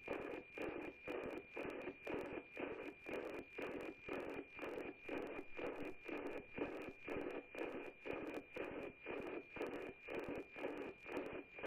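NOAA-18 APT weather-satellite downlink heard through an FM receiver: a steady high tone with a rhythmic tick-tock pulsing about twice a second, one pulse per image line, over a hiss of static.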